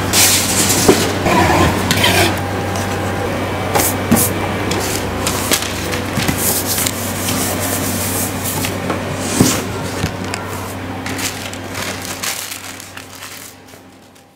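Packing being handled: packing tape pulled off a handheld tape dispenser and pressed onto a polystyrene foam box, with scraping, rubbing and clicks of the foam and box, over a steady low hum. The sound fades out over the last couple of seconds.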